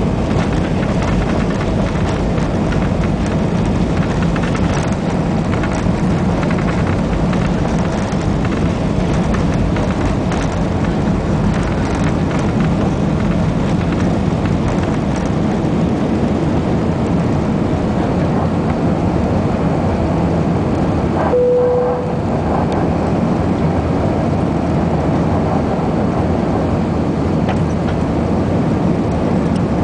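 Airbus A321 cabin noise on takeoff: the engines run steadily at takeoff power, with a deep rumble from the wheels on the runway that drops away after about half the time as the aircraft lifts off. About two-thirds of the way through comes a brief knock and a short tone.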